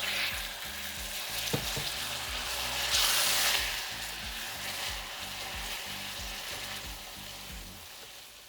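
Water poured into hot melted sugar caramel in a saucepan, spitting and sizzling as it hits the caramel while being stirred. The sizzle is loudest about three seconds in and dies down toward the end.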